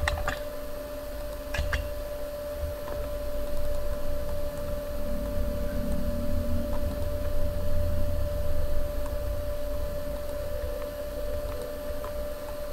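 Room tone: a steady hum over a low rumble, with a few sharp clicks in the first two seconds.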